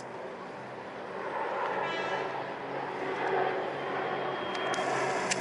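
Formation of KAI KT-1B Wong Bee turboprop trainer aircraft flying overhead, a steady engine drone that grows louder from about a second in.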